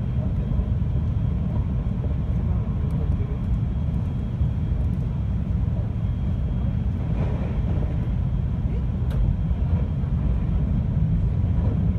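521-series electric multiple unit heard from inside the cabin while running: a steady low rumble of wheels and running gear on the track, with a faint thin whine held underneath.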